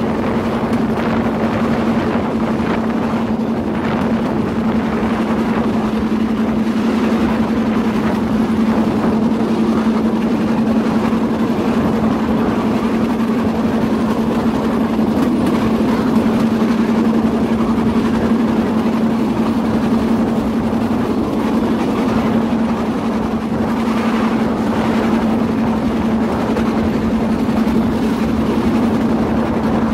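Bamboo train (norry) running along the rails: its small engine drones at a steady pitch over a continuous rumble of wheels on the track.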